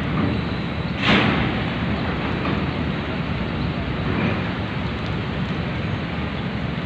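Steady rumble of a docked ro-ro passenger ferry with its engines running, with a brief louder burst of noise about a second in.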